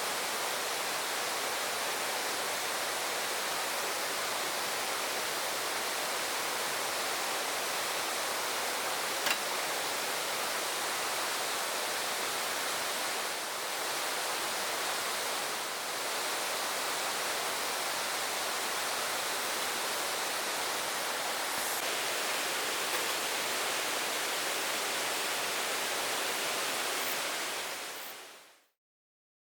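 Mountain valley stream flowing, a steady even rush of water that fades out near the end.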